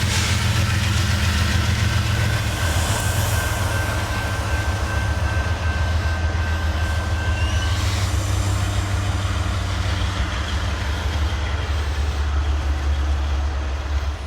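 Freight train's diesel locomotive running with a steady low drone as the train shoves back slowly, with a thin steady whine over it that stops about halfway through.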